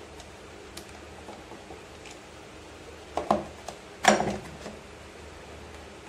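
Hard plastic drip tray being handled and bumped into place behind a refrigerator: a few light clicks, then two quick knocks about three seconds in and a louder knock with a short rattle about a second later.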